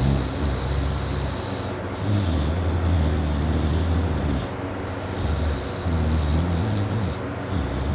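A sleeping man snoring loudly: long, low snores of about two seconds each, three in a row with short pauses between.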